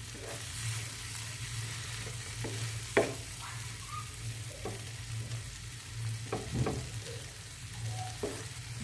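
Chopped tomato and onion masala sizzling in a frying pan while a spoon stirs it, with a steady hiss and several sharp knocks of the spoon against the pan, the loudest about three seconds in.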